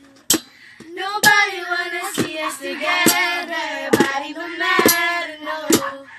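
Young girls singing together in a small room, with a sharp hand-struck beat about once a second keeping time.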